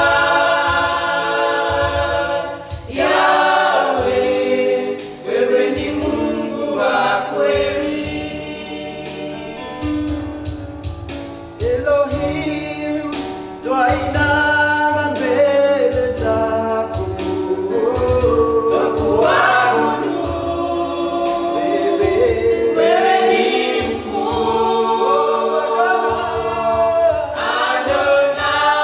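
Church praise team of men and women singing a gospel song together, accompanied on electronic keyboard.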